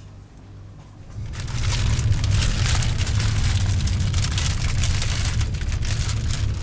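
Car road noise: a steady low rumble with a hiss over it, coming up suddenly about a second in.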